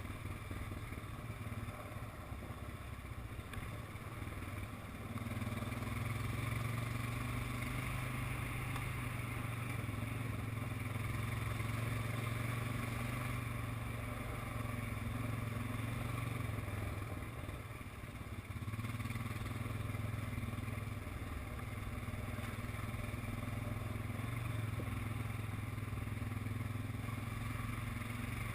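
ATV engine running steadily while riding along a trail, the throttle easing off briefly a few seconds in and again past the middle before picking back up.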